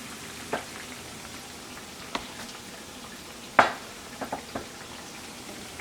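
Plantain pieces sizzling steadily in hot frying oil, with several sharp clicks and knocks from handling in the pan. The loudest knock comes about three and a half seconds in, followed by a quick cluster of three.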